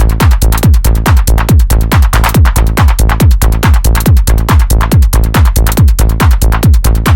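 Techno played live on a Roland TR-8S drum machine with synthesizer: a steady four-on-the-floor kick about twice a second, each kick dropping in pitch, over fast hi-hat ticks and a held low bass.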